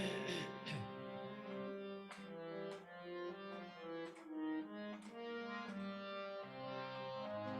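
Instrumental interlude of a Hindi film song: a reed instrument plays a melody of held notes that change every half second or so, with occasional light percussive taps.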